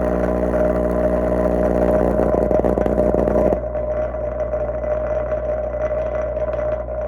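A 10-inch subwoofer driven directly from a Variac at about 80 volts, overdriven to destruction, making a loud, distorted, steady hum at mains frequency. About three and a half seconds in the sound changes abruptly: the upper buzz drops out and leaves a rougher, lower drone.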